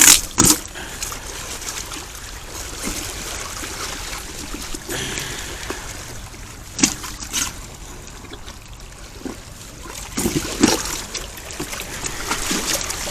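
Water trickling and lapping, with a few sharp knocks and clatters: twice at the start, twice around the middle, and a cluster a little over ten seconds in.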